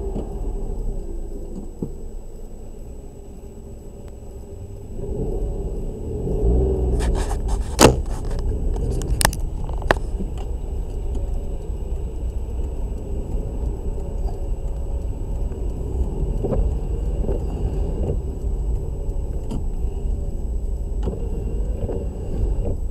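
Low rumble of a car heard from inside its cabin, growing louder about five seconds in as it starts to roll forward slowly. A few sharp knocks sound between about seven and ten seconds in.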